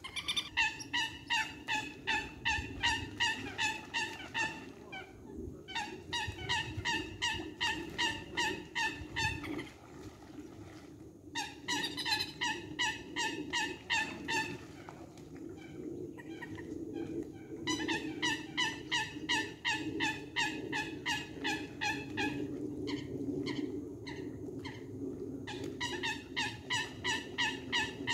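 Eurasian coots calling during a fight: rapid series of short, harsh, pitched calls, about four a second, in five runs of a few seconds each.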